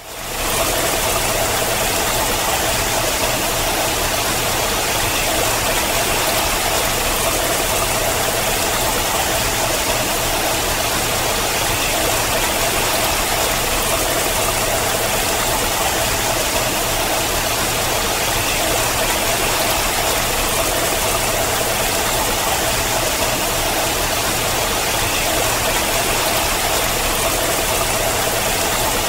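Water pouring and trickling down a rock face in a steady, even rush, fading in at the very start.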